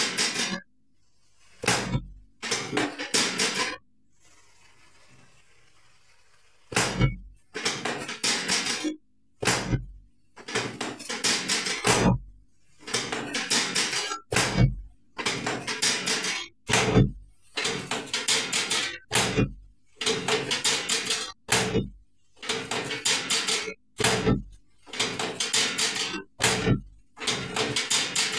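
Repeated knocks and thumps on a chiropractic treatment table during a chiropractic adjustment, about one a second, each a sharp thump followed by a short rattle of clicks, with a brief pause about four seconds in.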